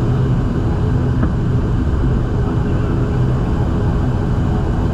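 Turboprop engines of an ATR 72 airliner running steadily after landing, heard inside the cabin as a loud, even drone with a low hum.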